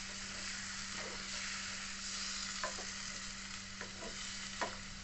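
Chicken in spice paste and a little water cooking in a pan, sizzling steadily, with a few light clicks scattered through.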